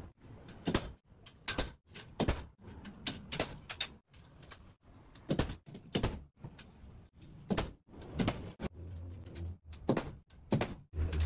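Steel stud framing work: irregular sharp metallic clicks and knocks as light-gauge steel studs are set into the track and fastened. A short low hum sounds twice near the end.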